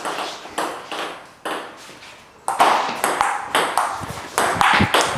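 Table tennis ball clicking back and forth off paddles and the table in a rally, about two hits a second, the hits louder from about halfway through.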